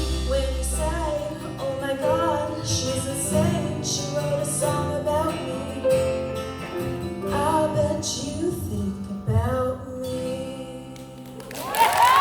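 Live band music with a woman singing and guitar, the song's closing section. The music dies away about eleven seconds in.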